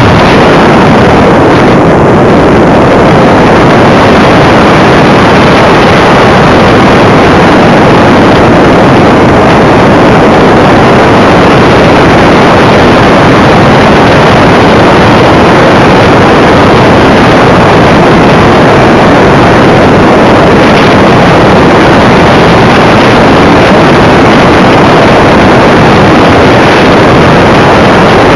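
Steady, very loud rush of airflow and motor noise picked up by a camera riding on a radio-controlled model aircraft in flight, overloading the microphone so that no clear engine note stands out.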